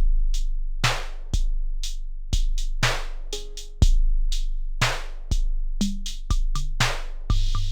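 Sampled drum pattern played back from an Akai MPC sampler: deep kicks with a long low tail about once a second, and snare and hi-hat hits between them. A short pitched hit sounds midway, and the pattern cuts off abruptly at the end.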